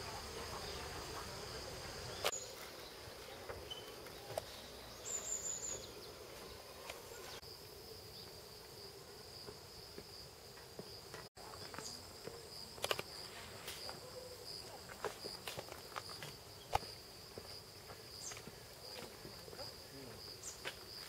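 Steady high-pitched insect chorus, with scattered light clicks and a brief high chirp about five seconds in.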